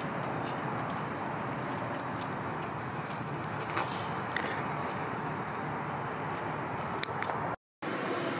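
A steady, high-pitched chirring of insects, a cricket chorus, with a few faint ticks. It cuts out briefly near the end.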